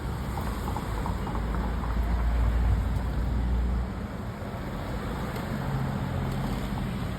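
Street traffic noise, with a car close by whose low engine rumble swells from about a second in and fades at about four seconds.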